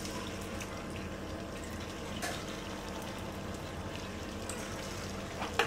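Battered chicken pieces deep-frying in hot oil in a wok, a steady bubbling sizzle. Two light knocks, about two seconds in and near the end.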